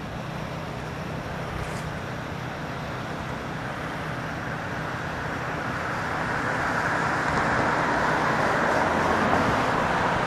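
Road traffic: a car's tyre and engine noise swells as it approaches and is loudest over the last few seconds, over a steady low hum.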